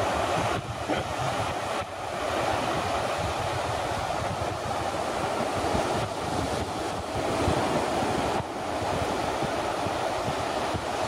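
Steady rushing roar of surf breaking on a sandy beach, with wind buffeting the microphone.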